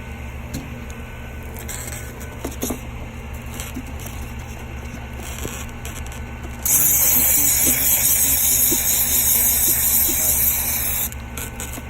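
A sprayer hisses in one continuous spray for about four seconds, starting suddenly near the middle and cutting off near the end, as liquid is sprayed onto a seam to check it for a vacuum leak. Under it runs a steady low machine hum, with a few small handling clicks before the spray.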